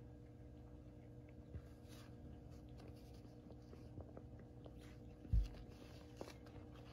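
Faint scratching and rustling of cats' paws and fur on a woven rug as two cats play-wrestle, over a steady low hum. A single dull thump on the microphone about five seconds in is the loudest sound.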